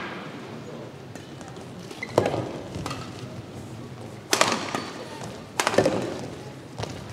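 A badminton rally: rackets smacking the shuttlecock back and forth, sharp hits with a short echo. The loudest come about two seconds in, at about four and a half seconds, and just under six seconds, with lighter hits between.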